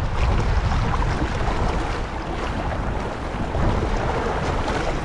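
Wind buffeting the microphone in a steady low rumble, over choppy seawater washing and splashing against shore rocks.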